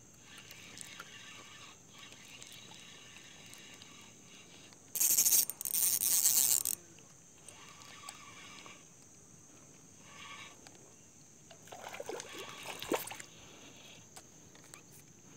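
Spinning rod and reel being worked through a cast and retrieve of a lure: a loud hiss lasting nearly two seconds about five seconds in, and a shorter burst of rattling, clicking handling noise about twelve seconds in.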